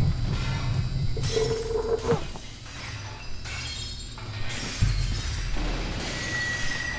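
Horror film sound design: a low rumbling drone with a held tone that ends in a sharp crash about two seconds in, then a deep hit near five seconds and a thin high tone near the end.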